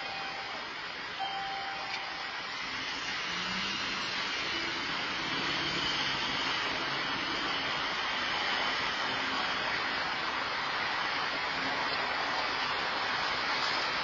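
Steady rush of road traffic through an outdoor security camera's microphone, swelling a little a few seconds in, with a faint low engine hum from a passing vehicle.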